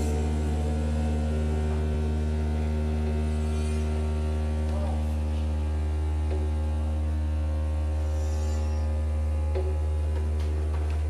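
Steady deep hum through a venue sound system, with a stack of fainter steady tones above it and no change in pitch or level.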